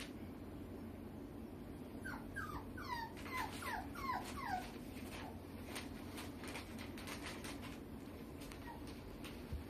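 A puppy whimpering: a quick run of about ten short, high squeaks, each sliding down in pitch, starting about two seconds in and lasting a couple of seconds.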